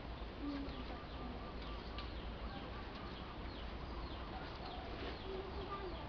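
Birds calling in the background: many short, high, falling chirps, a quick run of repeated notes early on, and a lower call near the end, over a steady faint hum.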